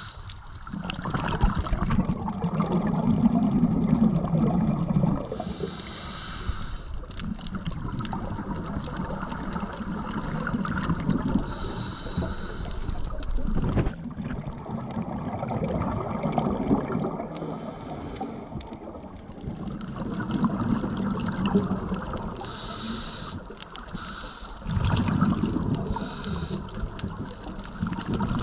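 Scuba diver breathing through a regulator underwater: a short hissing inhale about every six seconds, each followed by a longer bubbling rumble as the exhaled air escapes.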